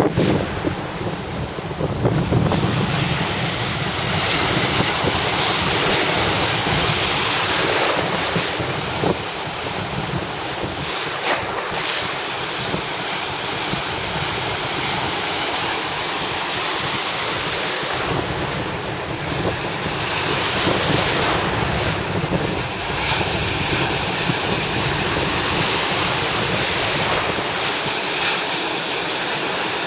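Small waves breaking and whitewater washing up the beach, with wind buffeting the microphone.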